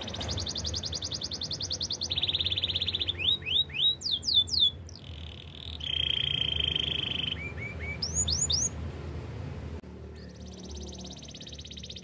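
Domestic canary singing a chain of rapid rolling trills. Loud upward-sweeping whistled notes come in the middle, and there is a brief pause near the end before the trilling starts again.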